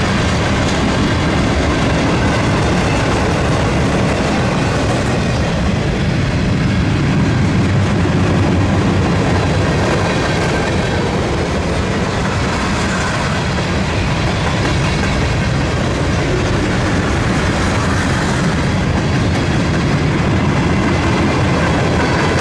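Mixed freight train's tank cars and flatcars rolling past: a steady, loud running noise of steel wheels on the rails.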